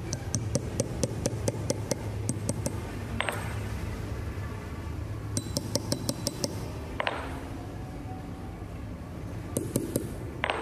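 Hammer tapping a steel punch on a small part resting on an anvil, quick light blows at about five or six a second with a bright metallic ring. A run of about a dozen taps, a pause, a shorter run about halfway through, and a few more taps near the end.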